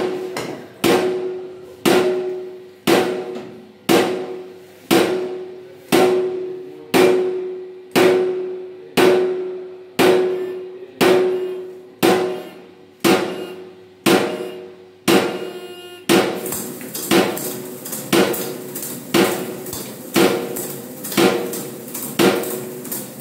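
Hard metallic knocks at a steady rate of about one a second, each ringing briefly on one pitch and fading before the next. About two-thirds of the way through, a steady rushing mechanical noise joins under the knocks.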